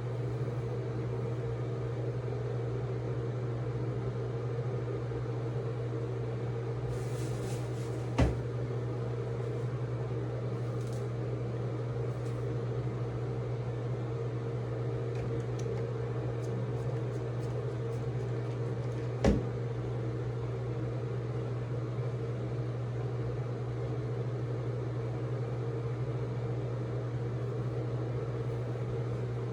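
A steady low hum fills the room, broken by two short sharp clicks, one about eight seconds in and another about eleven seconds later.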